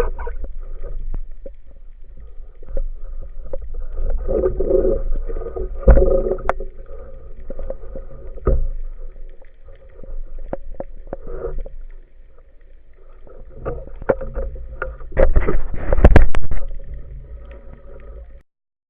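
Sounds aboard a small fishing boat at sea: a steady low rumble with a faint continuous hum, scattered knocks, and louder surges about 6 and 8 seconds in and again near the end; the sound cuts off suddenly just before the end.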